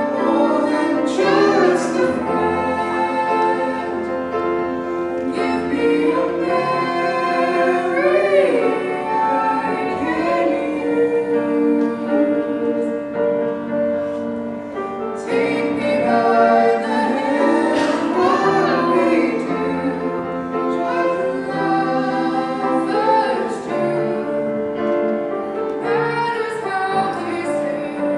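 A young male and a young female voice singing a slow pop ballad duet through microphones, sustained notes with vibrato, over piano accompaniment.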